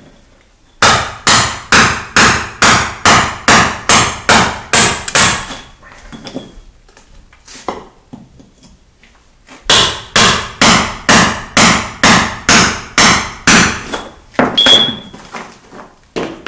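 Mini sledgehammer striking a steel chisel to chip out a concrete floor, in two steady runs of about a dozen blows each, roughly two a second, with a pause of a few seconds between.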